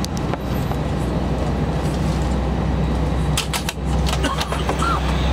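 Steady low hum of an airliner's cabin on the ground, with a few sharp clicks about three and a half seconds in.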